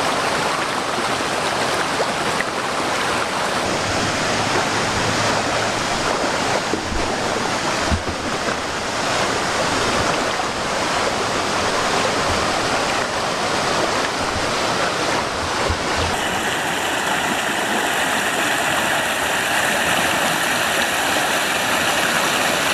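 Waterfall pouring steadily, a continuous dense rush of water. About sixteen seconds in, the sound of the rush changes abruptly.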